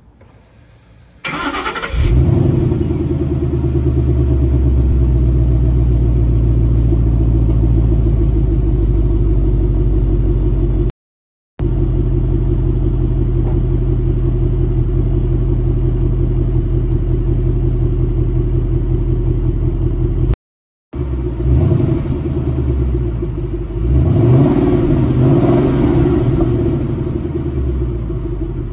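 2011 Ford Mustang GT's 5.0 V8 on its stock exhaust, cranking and firing about a second in with a brief flare, then idling steadily. The sound cuts out briefly twice. Near the end the throttle is blipped and then held in a longer rev that rises and falls back to idle.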